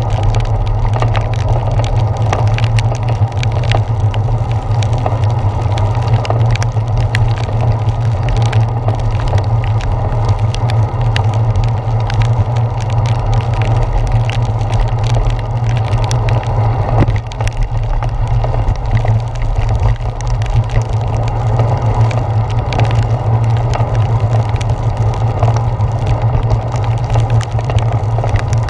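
Steady, muffled low rumble of wind and wet road vibration, picked up by an action camera sealed in its waterproof housing on a bicycle's handlebars while riding through heavy rain. Many small irregular ticks, as of raindrops striking the housing, run through it.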